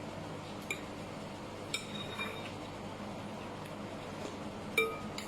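Cutlery clinking lightly against dishes three times, the second clink leaving a short bright ring, over a steady low background noise.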